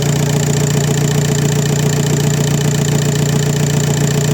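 Volkswagen Passat B5 1.9 TDI four-cylinder pump-injector diesel idling steadily, running again after its pump-injector seals were replaced.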